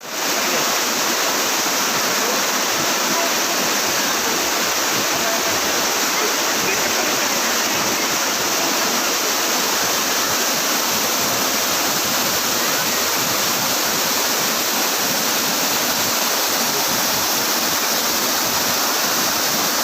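Waterfall: a steady, loud rush of falling water that holds an even level throughout.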